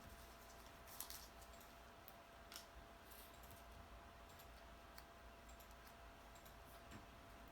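Near silence with a few faint, scattered clicks of paper pieces and foam tape being handled, over a faint steady hum.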